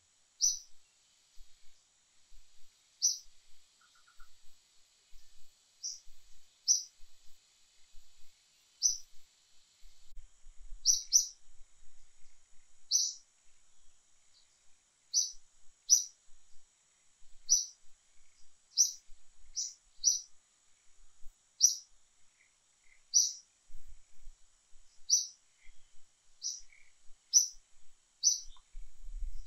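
A bird chirping over and over: short, high chirps, one every second or two, with a faint steady high hiss behind them in the first half.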